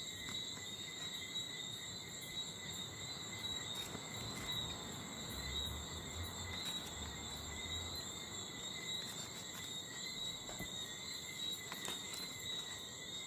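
A steady chorus of night insects, a constant high-pitched chirring, with faint scattered clicks of handling over it.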